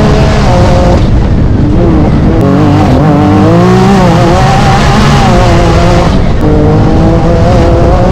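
Can-Am Maverick R side-by-side's turbocharged three-cylinder engine running loud under race load, its pitch climbing about halfway through, then falling and levelling off as the driver accelerates and backs off.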